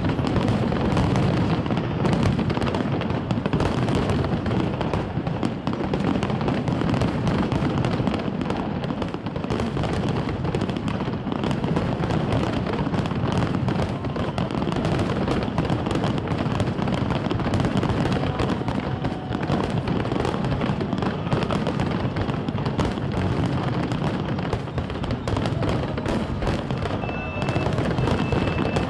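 Aerial fireworks shells bursting in a rapid, continuous barrage of booms and crackles, many overlapping with no pauses.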